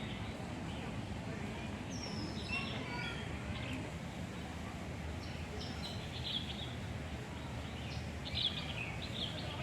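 Small birds chirping in short bursts of high calls, several times over, above a steady low background rumble.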